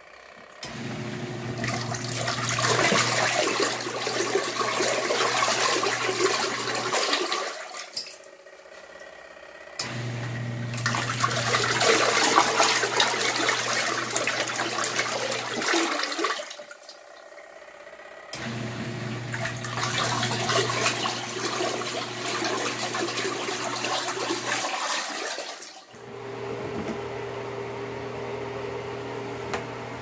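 Kuppet 8 lb single-tub portable mini washing machine on its wash cycle: the impeller churns water and clothes with a low motor hum, in runs of about six seconds separated by short pauses, then a steadier, less splashy stretch with the motor running near the end.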